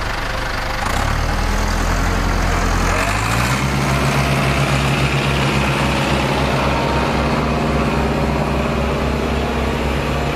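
Diesel engine of an International 885 XL tractor running, revving up in two steps about a second and three seconds in, then holding a steady, throbbing pace.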